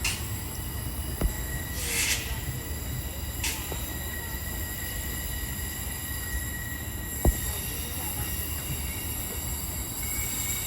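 Queensland Rail electric suburban train at a station platform: a steady high-pitched whine over a low rumble, with short hisses near the start, about two seconds in and about three and a half seconds in, and a sharp clunk about seven seconds in.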